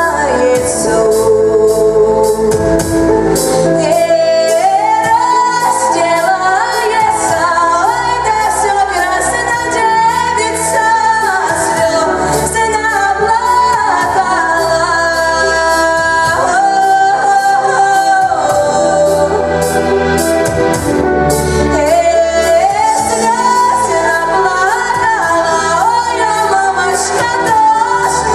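A girl singing a pop ballad into a microphone over a backing track with a steady drum beat and bass.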